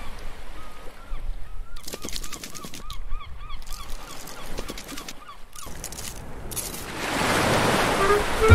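Cartoon sound effects: a quick run of short squeaky chirps, about four a second, with clusters of clicking taps for a scuttling animated crab, then a surf wave rushing in near the end.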